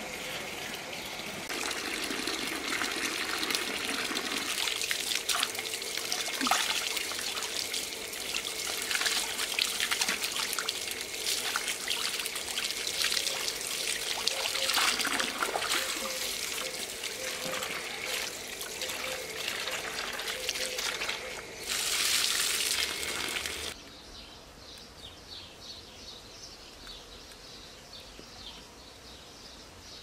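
Water trickling and splashing, with small clicks and knocks mixed in. It cuts off abruptly about three-quarters of the way through, leaving quieter birdsong.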